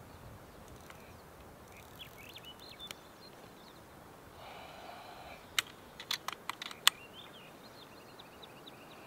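A quick run of about seven sharp mechanical clicks within a second and a half, a little past halfway, from handling a Kral Puncher air rifle as it is readied to shoot. Faint birdsong behind.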